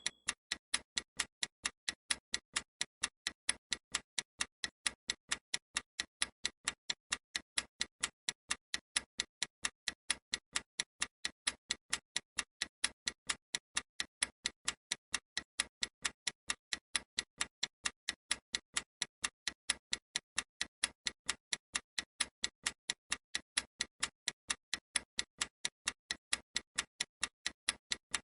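Analog clock ticking evenly and steadily, about two sharp ticks a second.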